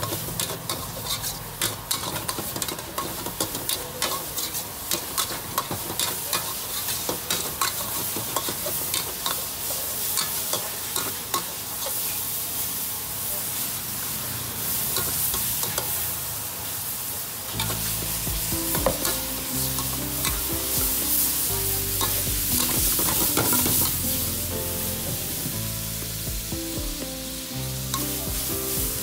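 Stir-frying in a steel wok: a metal spatula scrapes and clinks against the pan in quick, uneven strokes over the hiss of food sizzling in hot oil. Background music with low bass notes comes in about two-thirds of the way through.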